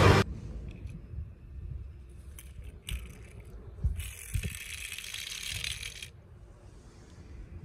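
Small toy cars being handled, with light clicks and clinks scattered through and a stretch of rushing noise about four seconds in.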